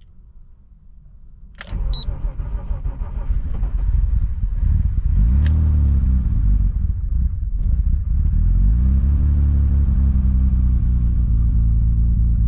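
Turbocharged BMW M50 inline-six starting up about two seconds in, then running steadily, its pitch rising and falling a couple of times.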